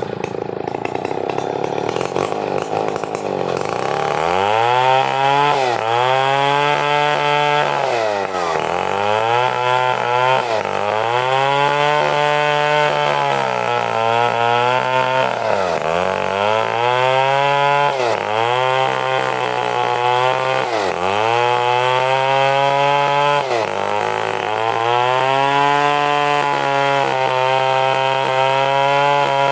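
Stihl chainsaw running hard while ripping an angsana log into planks. Its revs climb over the first few seconds, then its pitch dips sharply and recovers every two to three seconds as the cut loads and eases.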